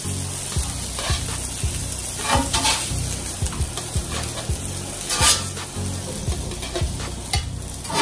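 Salmon fillets sizzling in hot oil on a cast-iron griddle. A metal spatula scrapes across the iron a few times as fillets are lifted off.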